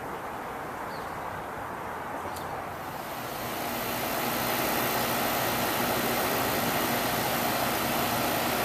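Newly installed Rheem 4-ton R-410A air-conditioning condenser running, a steady rush of its fan with a low hum from the compressor. It grows louder about three seconds in and then holds steady.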